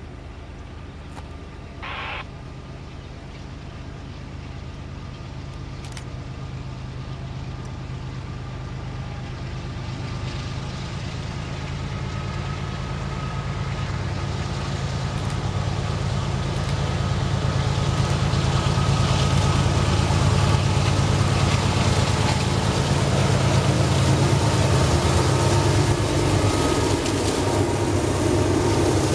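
CSX diesel locomotives hauling an empty coal hopper train, their low engine rumble growing steadily louder as they approach, then the empty hopper cars rolling past.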